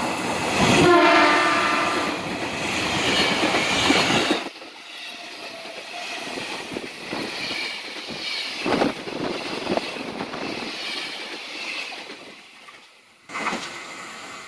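Tokyo Metro 6000-series electric commuter train sounding its horn for about a second as it approaches. It then passes close by with wheel-on-rail noise and a few rail-joint clacks.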